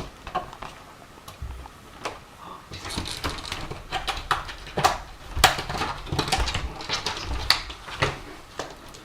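Irregular clatter of light knocks and clicks, a dozen or more, loudest in the middle.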